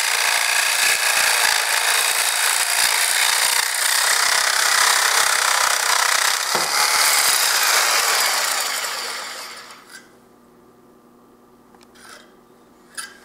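REMS Tiger ANC reciprocating saw cutting through steel pipe held in its pipe bracket, running steadily for about eight seconds, then fading and stopping. A couple of light knocks follow near the end.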